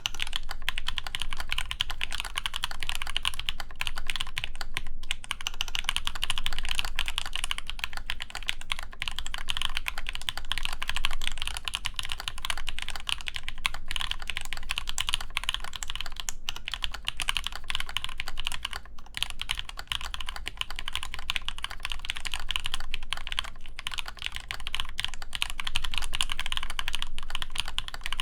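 Continuous fast typing on an AEBoards Praxis IM mechanical keyboard with an ABS injection-molded case, full aluminum plate, GMK keycaps and Zepsody Blue Bonnet switches lubed with Krytox 205g0: a dense, steady stream of key presses with barely a pause.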